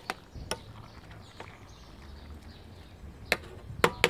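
Metal spoon clinking against a stainless-steel pot while stirring: a few sharp, separate knocks, the two loudest close together near the end.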